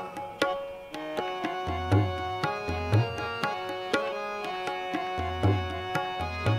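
Kirtan accompaniment without voice: a tabla plays a steady rhythm of sharp strokes with deep bass-drum notes under sustained harmonium chords.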